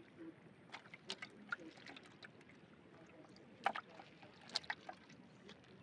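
Scattered wet taps, slaps and small splashes as live fish are picked from a wet cast net and dropped into a shallow aluminium plate with a little water. The taps come at irregular intervals, and the loudest come a little past the middle.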